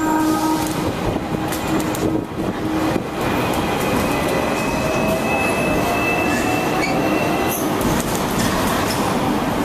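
Hong Kong double-decker tram running on its street track: a steady rumble, with a high whine held for several seconds in the middle and a few scattered clicks.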